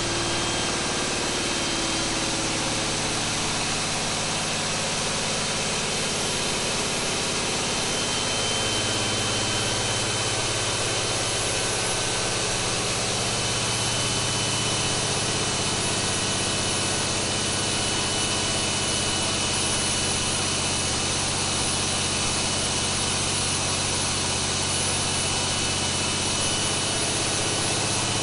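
John Deere 8.1L inline six-cylinder marine diesel running steadily at full throttle under dyno load. Its speed is slowly pulled down from about 2300 to about 1900 rpm as the load rises toward peak torque.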